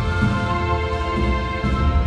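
Composed soundtrack music: held notes layered over a deep, full low end, steady in level.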